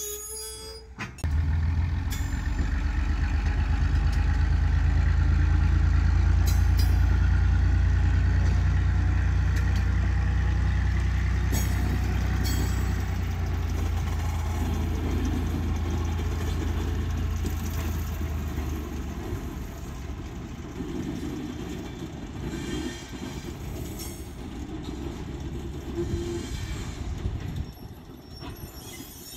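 Diesel engine of a GE 50-ton switcher locomotive pulling away with a second switcher coupled on. A heavy low rumble starts about a second in, swells over the next few seconds, then slowly fades as the locomotives move off, with a few sharp clanks along the way.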